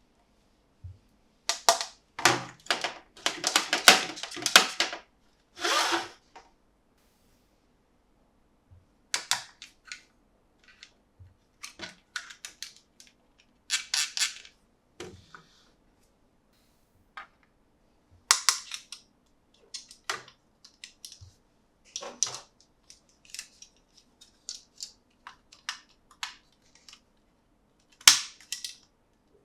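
Hard plastic toy parts and packaging being handled close up: a few seconds of dense rustling and crinkling near the start, then scattered sharp clicks and taps with short pauses between them.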